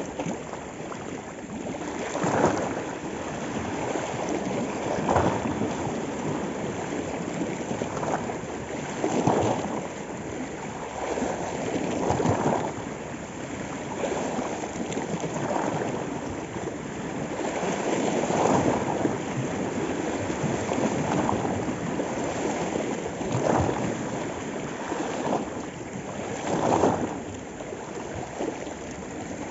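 Small sea waves washing and splashing against shoreline rocks, swelling and falling back every few seconds.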